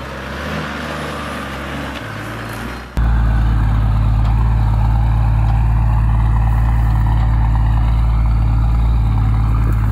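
Lifted 80-series Toyota Land Cruiser's diesel engine pulling up a steep, rocky hill. At first it sounds noisier and rougher, then about three seconds in it jumps abruptly to a louder, steady low drone.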